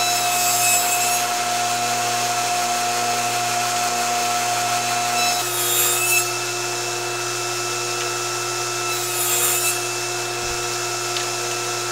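SawStop table saw running steadily with its blade set low, cutting rabbets into small wooden blocks: three short cuts, one at the start, one a little past halfway and one about three quarters of the way through.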